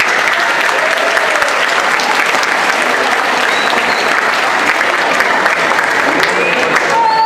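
A large crowd applauding and cheering, with dense clapping throughout and a few shouts rising above it.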